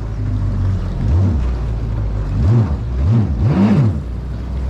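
Yamaha WaveRunner jet ski engine running with short throttle blips, its pitch rising and falling about four times.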